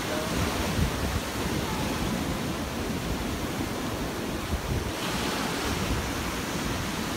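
Ocean surf washing over a rocky shore, with wind buffeting the microphone.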